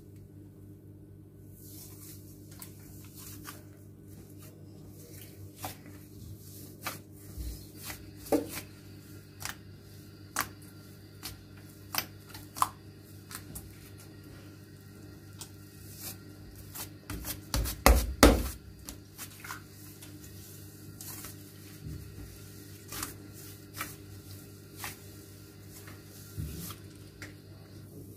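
Hands stretching, poking and squishing a fluffy blue slime on a stone countertop, making scattered soft clicks, crackles and squelches. A louder run of pops and squelches comes about two-thirds of the way through. A steady low hum runs underneath.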